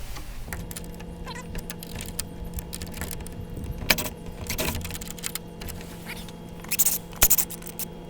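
Metal clinks and rattles from door-knob lock hardware being handled, several sharp clicks with a cluster near the end, over a steady low mechanical hum.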